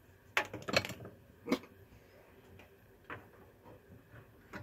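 Sharp plastic clicks and taps from hands handling a 3D-printed robot model: a cluster of loud clicks in the first second, one more soon after, then fainter scattered ticks.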